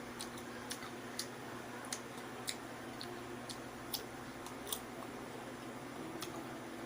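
Faint, sharp clicks about two a second over a low, steady room hum.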